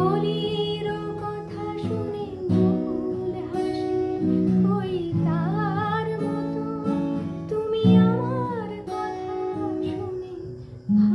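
A woman singing a Bengali song to an acoustic guitar accompaniment, her voice bending and wavering in ornaments around the middle.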